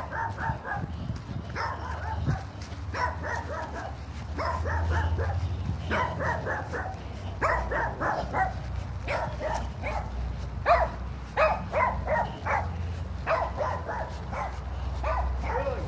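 A dog barking over and over in quick runs of short barks, over a steady low hum.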